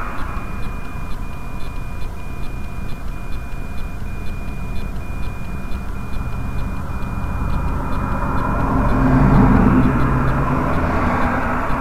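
Steady low rumble of highway traffic, with a vehicle passing close by that swells loudest about nine to ten seconds in and then fades.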